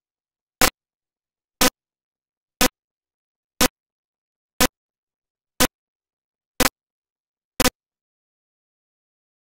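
Eight short, sharp ticks, evenly spaced one a second, with dead silence between them, like a ticking clock.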